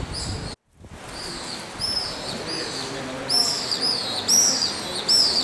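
A small bird chirping over and over, short arched chirps about twice a second, louder from about three seconds in. The sound drops out briefly near the start.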